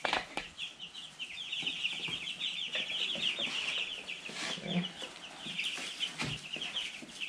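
A flock of two-week-old meat chicks peeping constantly, many short high chirps overlapping. A few knocks and clinks come from the galvanized metal trough feeder being handled and repositioned.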